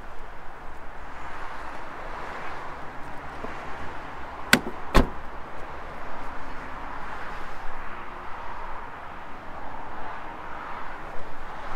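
Steady outdoor background noise with two sharp clicks about half a second apart near the middle.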